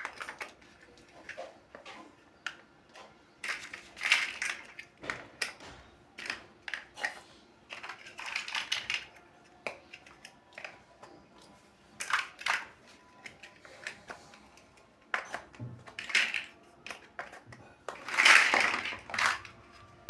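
Plastic building blocks being handled and pressed together: scattered clicks and short rattles, with a longer rattle of pieces near the end.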